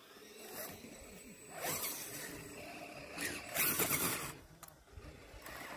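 Radio-controlled rock crawler's electric motor and geared drivetrain whining in two short bursts as it climbs over rock, about one and a half and three seconds in.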